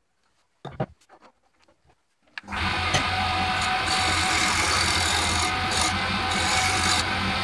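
Wood lathe running while a turning chisel cuts the spinning wooden spindle: a steady scraping over the motor's constant hum, starting suddenly a little over two seconds in. Before that, near silence with a few faint knocks from the wood being handled.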